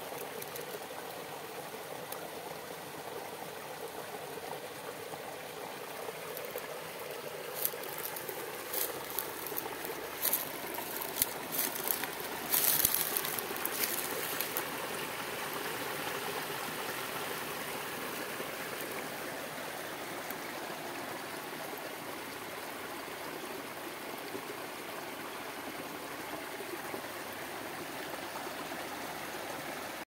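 Small stream of foamy wastewater running and trickling over fallen branches, a steady rushing of water. Between about 8 and 15 seconds in, a run of sharp crackles and snaps, loudest near the middle of that stretch.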